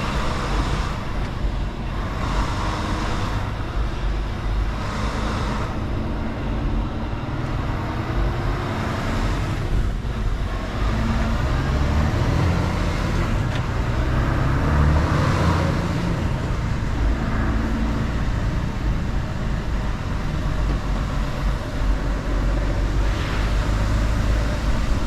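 Mercedes-Benz Actros L truck's diesel engine running steadily while driving, with road noise. The engine note rises and shifts in pitch about halfway through.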